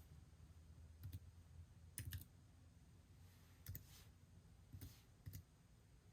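Faint, irregular clicks of a computer being worked by hand. Single clicks are spread over a few seconds, with a quick cluster of three around two seconds in.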